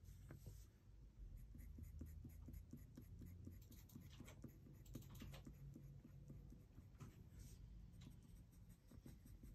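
Faint scratching of a colored pencil on paper in quick short strokes, several a second, over a low steady hum.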